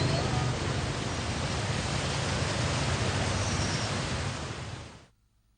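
Steady rushing noise, fading out to silence near the end.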